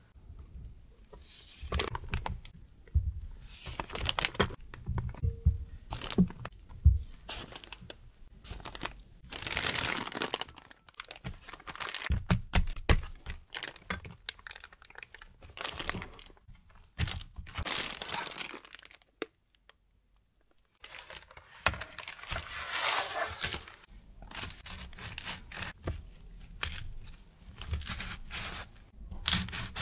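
Plastic piping bag crinkling and rustling as batter is pushed down into it with a plastic scraper, a string of crinkly swishes. Near the end, soft knocks of a plastic cookie cutter pressing through rolled dough on parchment paper.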